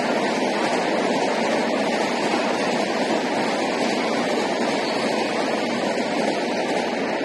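Steady rushing background noise, even and unbroken, with no distinct hits or voices standing out.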